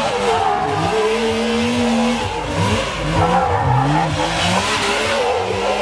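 Sport side-by-side UTV engine revving up and down as it spins donuts on loose dirt, over the steady hiss of its spinning tyres throwing dirt.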